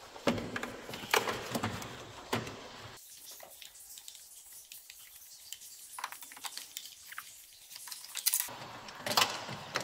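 Scattered clicks and metallic knocks of a ratchet and extension working on engine bolts, sparser through the middle.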